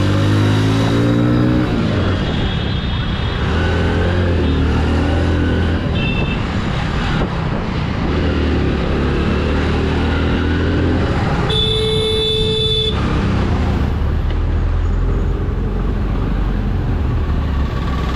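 Hero Splendor Plus motorcycle's small single-cylinder four-stroke engine running while riding in dense traffic, with traffic noise around it; the engine note rises in the first second or two. A vehicle horn sounds for just over a second about twelve seconds in, after a short high beep near six seconds.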